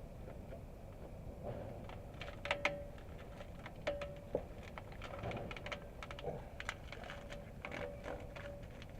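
Scattered light clicks and taps of small parts and materials being handled during hands-on exhaust repair work, over a faint steady hum, with a few sharper taps in the middle.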